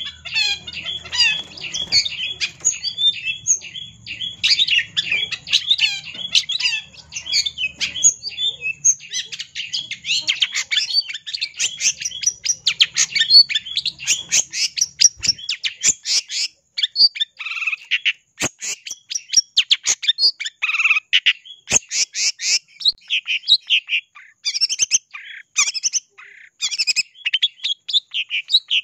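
Long-tailed shrike (cendet) singing persistently: a fast, nearly unbroken run of short high chattering notes, with a few longer, clearer notes a little past the middle. This is the bird's rival-provoking song, meant to draw other shrikes into answering.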